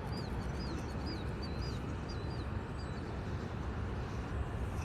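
A songbird singing a quick series of short, repeated chirping notes, about two a second, stopping about three seconds in, over a steady low background rumble.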